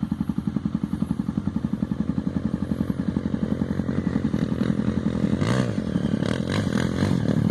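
A motorcycle engine running with a steady low pulse, revving up and back down once about five and a half seconds in.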